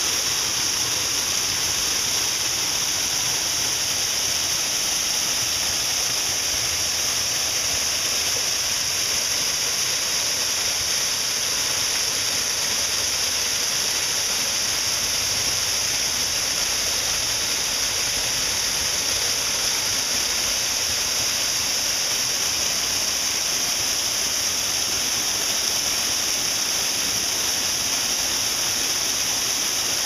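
Small waterfall pouring over rocks and splashing into a shallow pool: a steady rush of water with a strong high hiss.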